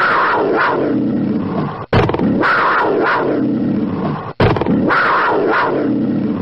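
Recorded big cat roar sound effect for a panther logo sting, the same roar clip played three times in a row with abrupt cuts between the repeats.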